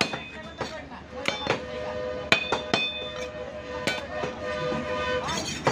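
Heavy meat cleaver chopping beef on a wooden log chopping block. About seven sharp, irregularly spaced chops, several followed by a brief metallic ring from the blade.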